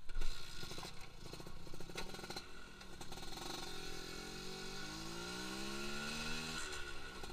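Suzuki Satria RU 120's two-stroke single-cylinder engine running, freshly rebuilt and in stock tune. About halfway through, its pitch climbs steadily for some three seconds as it revs up, then falls away near the end.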